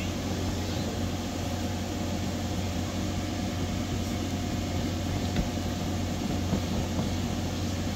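Electric inflation blower of a bounce house running with a steady droning hum. A couple of faint soft thumps come from a child jumping on the inflated floor.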